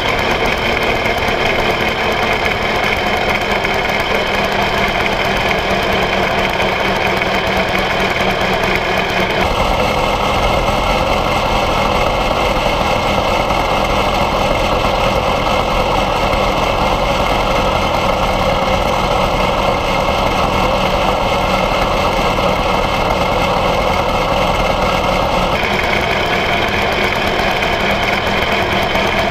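Single-cylinder air-cooled engine of a 1901 Indian Camelback replica motorcycle, running steadily under way. Its tone shifts about ten seconds in and shifts back near the end.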